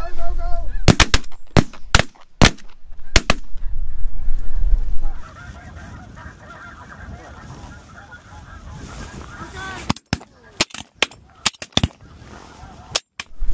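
A volley of shotgun blasts, about seven in the first three seconds, over a flock of snow geese calling. The calling goes on after the shots, and a second run of shots comes from about ten seconds in.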